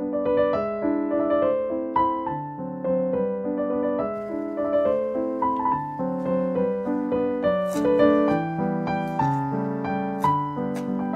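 Background piano music. Late in the stretch, a chef's knife chopping dill on a wooden cutting board adds a run of quick, sharp taps over it.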